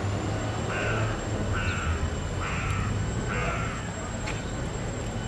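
A crow cawing four times in an even series, each caw short and harsh, about a second apart.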